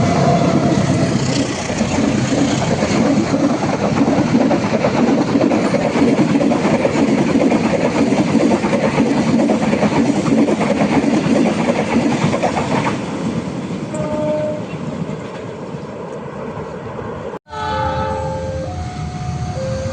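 A train running through a level crossing, its wheels clattering steadily over the rails, with a horn just ending at the very start. The rumble thins out after about 13 seconds. Near the end, after a brief break, a series of stepped horn-like tones sounds.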